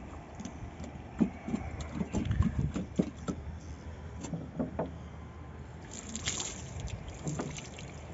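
Irregular soft thumps and knocks with brief splashes: water sloshing in a large plastic water bottle as it is handled, and wet socked feet shifting on wet roof tiles. A short splash about six seconds in.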